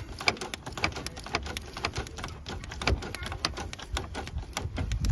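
Rapid, irregular clicking and tapping, several clicks a second, from hand tools being worked on the car's engine.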